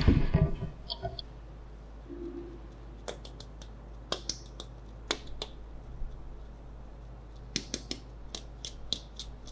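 Fingers and fingernails handling a glitter-covered egg: light, scattered clicks and small scratchy ticks, with a cluster near the end. The tail of a chiming jingle fades out in the first second.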